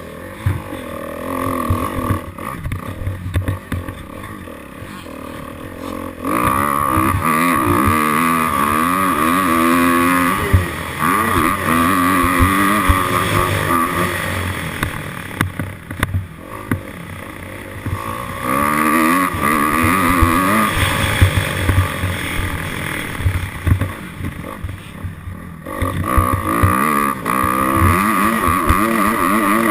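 Dirt bike engine revving up and down with the throttle. It is loudest from about six seconds in to about fourteen, again around nineteen to twenty-one, and from about twenty-six seconds on, running lower and quieter in between. Wind buffets the microphone throughout.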